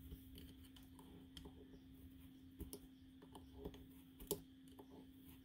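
Faint, irregular clicks of a metal loom hook tapping and scraping against the plastic pegs of a round knitting loom as loops are lifted over the pegs, over a steady low hum.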